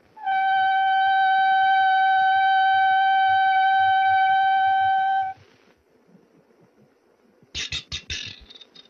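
A long steady horn blast held on one pitch for about five seconds, stopping abruptly. About two seconds later comes a quick run of five or six sharp knocks.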